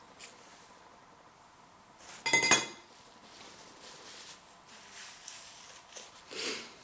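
A metal spoon set down with a short clink about two seconds in, then soft rustling of a paper tissue being unfolded and wiped across the mouth near the end.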